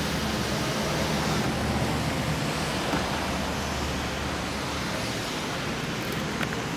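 Steady rushing noise of wind and outdoor ambience on the camera microphone, with no distinct events.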